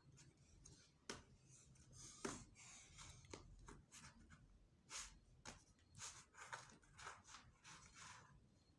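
Faint handling sounds of thin white craft sticks being picked up and laid across a cardboard ring on a hard tabletop: a string of light taps and short rubbing rustles about a second apart.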